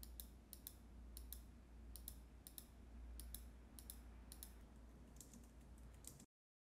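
Faint computer keyboard keystrokes as text is typed, irregular taps a few per second over a low hum. Near the end the sound cuts out to dead silence.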